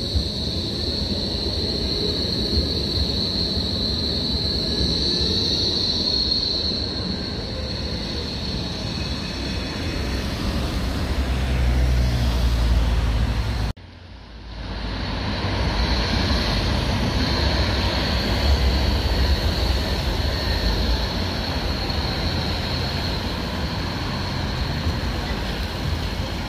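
Articulated low-floor tram passing close by: its running gear rumbles, with a high steady tone over it that fades after about six seconds. About halfway through the sound cuts off abruptly and gives way to street traffic, with cars passing and trams farther off.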